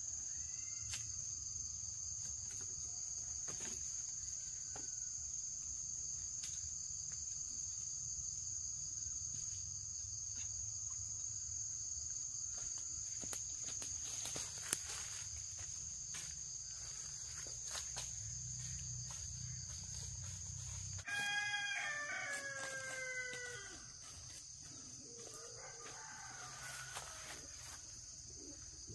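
A rooster crows once, about three-quarters of the way through, over a steady high buzz of insects. A low rumble underneath cuts off suddenly just before the crow.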